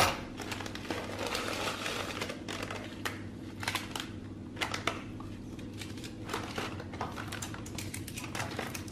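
Plastic wrappers of Gấu Đỏ instant rice porridge crinkling and rustling in the hands as the packets are handled and the small sachets are pulled out of the dry porridge, in irregular crackles and clicks over a steady low hum.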